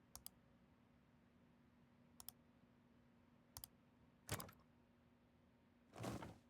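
Sharp double clicks, three pairs about a second and a half apart, then a louder clatter of clicks and a short, dull rustling knock near the end, over a faint steady hum.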